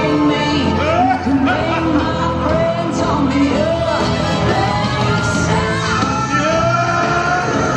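Parade music playing loudly: a song with a singing voice over a full backing track.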